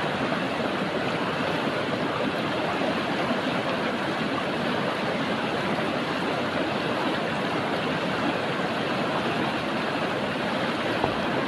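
Steady rushing of river water flowing.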